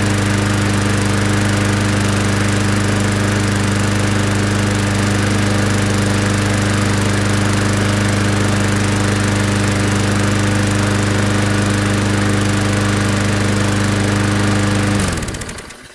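Push lawnmower's 6.25-horsepower single-cylinder engine running steadily after a primed cold start. About fifteen seconds in, it stops and dies away within a second.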